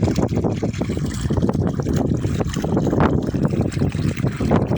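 Artesian water gushing steadily from a 300 m-deep self-flowing borehole, a continuous rushing and splashing noise.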